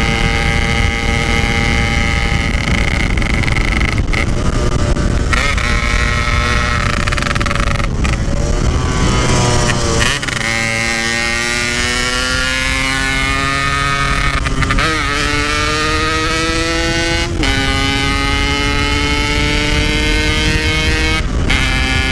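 Yamaha RX-King's two-stroke single-cylinder engine pulling hard through the gears while riding, its pitch climbing in each gear and dropping at each of several shifts. It is heard through a stock-style 'standart belek' Packing Power exhaust, with a low rush of wind under it.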